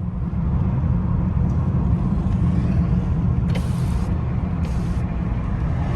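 2011 BMW 328i straight-six driving at low speed: a steady low rumble of engine and road noise, with no rattle, since the broken DISA intake valve has been replaced. Two brief hisses come about halfway through.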